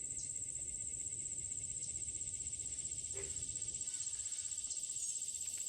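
Steady high-pitched insect chorus, a fast pulsing buzz that does not let up.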